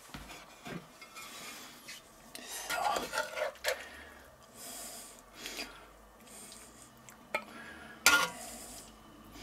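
A slotted serving spoon scraping and clinking in a cast-iron skillet as food is scooped out and laid onto a ceramic plate, with scattered soft scrapes and a sharper knock about eight seconds in.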